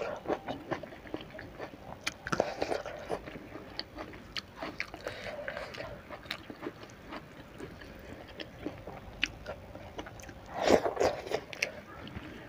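Close-miked eating sounds of rice and fish eaten by hand: chewing with many small wet clicks, louder about two seconds in and again near the end.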